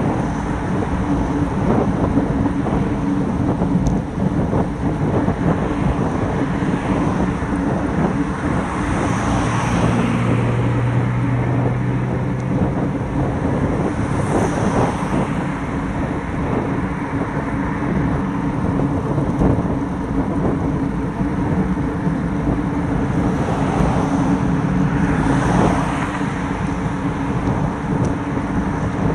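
Wind buffeting the microphone of a handlebar-mounted action camera on a road bike riding at about 20 to 24 mph, over steady tyre hum on asphalt. Cars pass in the lanes alongside several times, swelling and fading.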